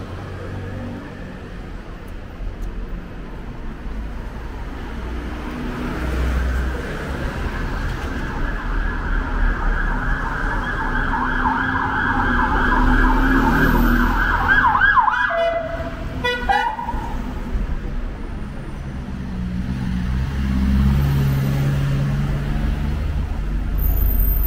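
Emergency-vehicle siren in a fast warble, building from about six seconds in and cutting off abruptly about fifteen seconds in, over the low rumble of passing buses and street traffic.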